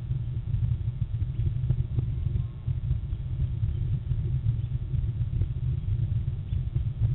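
Steady, fluttering low rumble of wind buffeting an outdoor camera microphone, with a few faint ticks.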